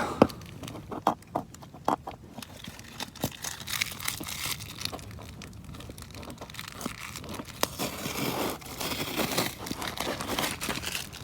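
Old packing tape being peeled and torn off cardboard, with the cardboard crinkling and rustling in the hands; irregular sharp crackles and tearing noises throughout.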